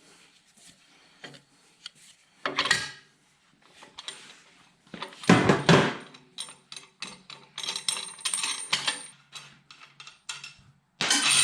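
Metal clanks, scrapes and rapid clicks of hand tools working a homemade threaded-rod puller that draws a cam bearing out of a big-block Chevy 454 engine block. The loudest scraping clatter comes about five seconds in, with another loud burst at the end.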